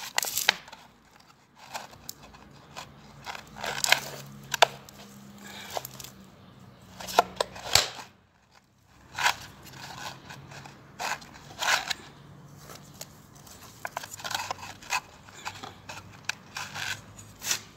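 Hand scooping and pressing loose potting soil in a cut-open container: irregular crackling, scraping and crinkling strokes of soil and container.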